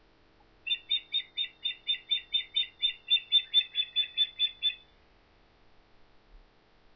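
Bird of prey at its nest calling: a rapid series of about eighteen short, high calls, roughly four a second, starting about a second in and stopping after about four seconds.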